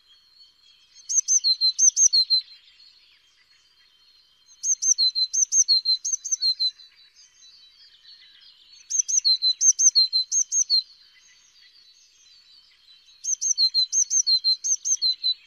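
Eurasian blue tit singing: four song phrases about four seconds apart, each a couple of high thin notes followed by a quick run of lower repeated notes.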